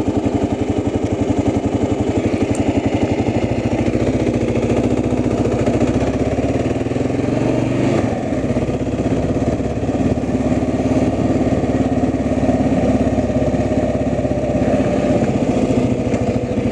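Engine of a slow-moving vehicle running steadily, its pitch rising briefly a little past the middle before settling again.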